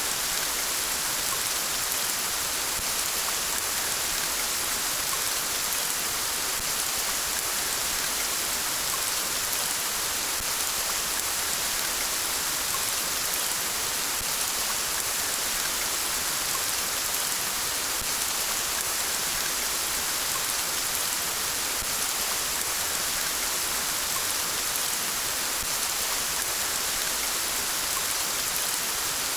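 Steady rain falling beside a river, an even, unbroken hiss strongest in the high end with no single drops or thunder standing out.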